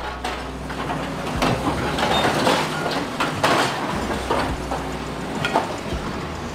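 Excavator fitted with hydraulic metal shears working scrap: the engine runs steadily under a dense clatter of metal, with scattered clanks and knocks.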